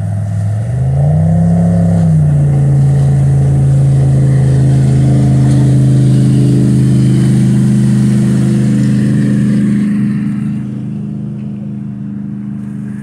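Motorboat engine running as the boat speeds past on the river. Its pitch rises briefly about a second in, then holds steady and drops away somewhat near the end.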